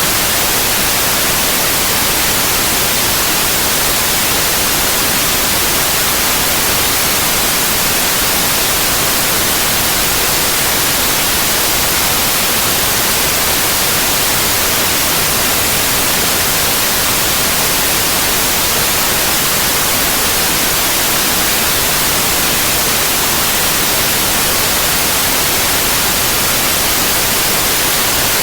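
Steady, loud white noise: an even hiss spread across all frequencies, strongest in the highs, with no change or break.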